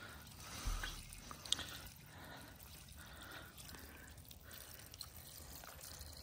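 Water poured from a large plastic water jug onto dry soil around melon plants, faint trickling and dripping with a few small ticks.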